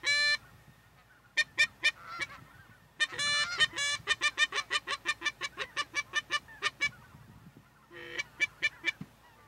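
Canada geese honking in flight. The honks come singly at first, then quickly at about four a second through the middle, with a few more near the end.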